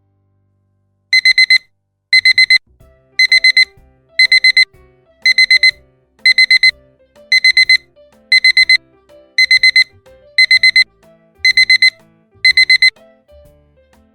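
Alarm clock beeping in quick bursts of four high beeps, one burst about every second, starting about a second in and stopping near the end.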